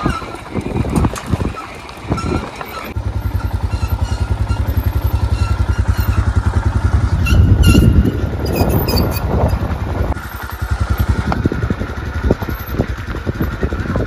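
Motorcycle engine running with an even, quick low beat from about three seconds in, loudest near the middle as the bike passes close. Before that there is rougher motorcycle riding noise.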